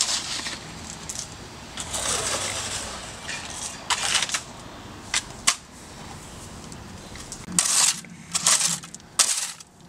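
A shovel scraping and crunching into packed soil and stones, in irregular strokes, with several loud scrapes about a second apart near the end.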